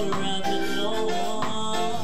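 A singer's voice over live band music, with a guitar among the instruments.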